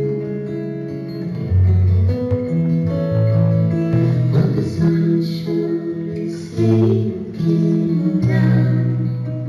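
Live acoustic band music: acoustic guitar playing over held keyboard notes in a slow ballad.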